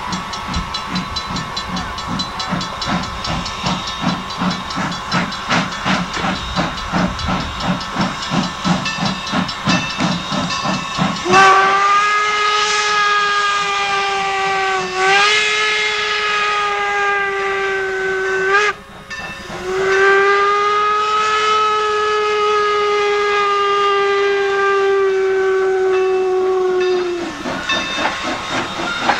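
Steam locomotive (Norfolk & Western 4-8-0 No. 475) chuffing steadily as it works a passenger train. About eleven seconds in, its steam whistle sounds a long blast that runs on with a slight step in pitch. After a brief break comes a final long blast of about seven seconds, a whistle signal for the grade crossing ahead, and then the chuffing returns near the end.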